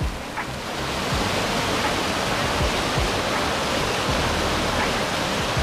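Mountain creek water rushing and tumbling over rocks and fallen logs, a steady rush that grows louder about a second in.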